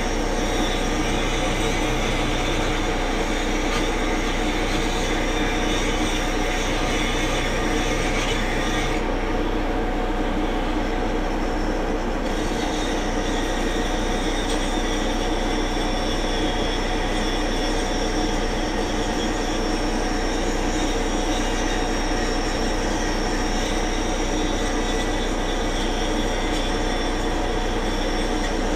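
A machine running steadily: a dense, even mechanical drone with several high whining tones over it. The high part of the sound dips and changes about nine seconds in.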